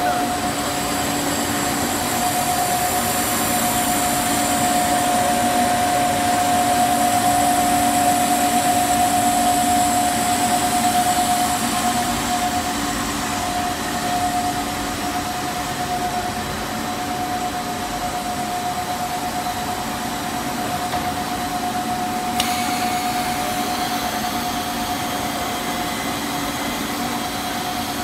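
CPVC pipe extrusion line running: steady factory machinery noise with a constant mid-pitched whine.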